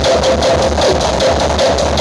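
Loud electronic dance music with a heavy pulsing bass and a fast steady beat, played through a large Thai outdoor-cinema sound system in a sound-rig face-off.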